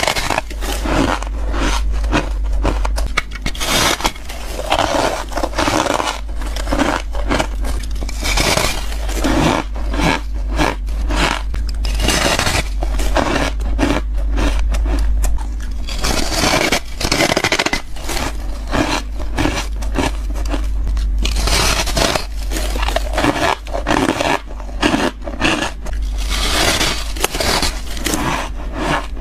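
Close-up crunching of ice being bitten and chewed: a dense, unbroken run of crisp cracks, squeaks and scrapes, over a steady low hum.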